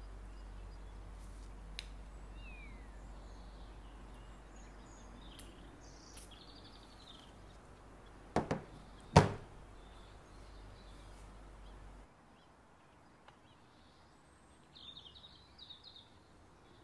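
Handling of a glass perfume bottle on a table: two sharp knocks about a second apart, the loudest sounds, over a steady low hum. Faint bird chirps sound in the background, and the hum cuts off about three-quarters of the way through.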